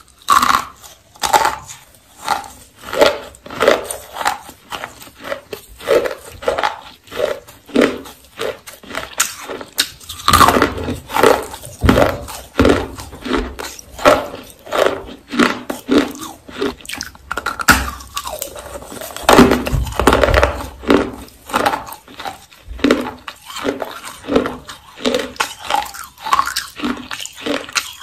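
Baked clay rolls being bitten and chewed: a steady run of dry crunches, about one and a half a second, thicker and louder in two stretches partway through.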